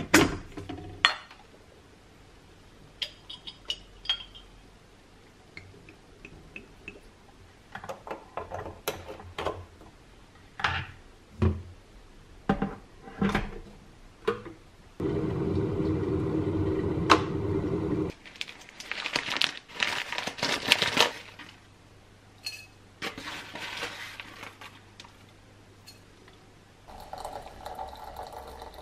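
Clicks and knocks of an electric kettle and kitchenware being handled on a countertop, with a loud steady rush lasting about three seconds midway. Near the end, water pouring steadily from the kettle into a ceramic teapot.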